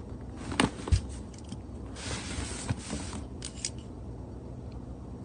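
A utility knife slitting the seal on a cardboard box, a scraping cut lasting about a second from about two seconds in, with a few knocks and clicks from the box being handled.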